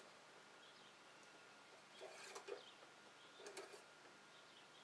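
Near silence: faint background with two brief soft rustles, about two seconds in and again about three and a half seconds in, and a few faint high chirps.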